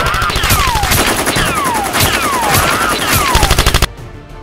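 Dubbed-in sound effect of rapid automatic gunfire, with repeated falling whistles like bullet ricochets laid over it. It cuts off suddenly near the end, and quieter music takes over.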